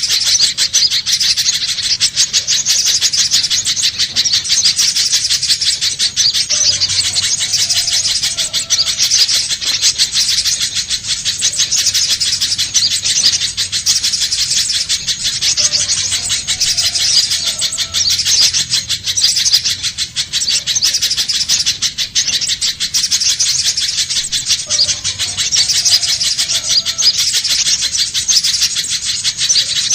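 Spiderhunter calling continuously: a dense, unbroken stream of rapid, high, sharp chips.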